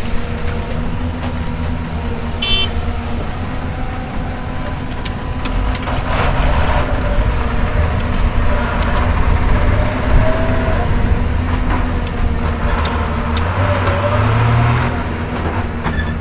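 Hyundai Robex 220-9S excavator's diesel engine running steadily, getting louder from about six seconds in as it works. Scattered sharp clicks and knocks sound over it.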